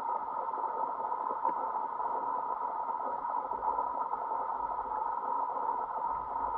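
Steady, muffled underwater noise, centred in the mid range, picked up by a submerged camera in its waterproof housing.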